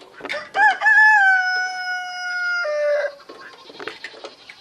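A rooster crowing once: short opening notes, then a long held note that drops in pitch at the end. Faint clicks and rustling follow.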